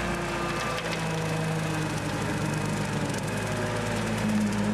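Kubota compact tractor's diesel engine running under load while pulling a rear mower through tall grass. Its note drops about half a second in and climbs again near the end.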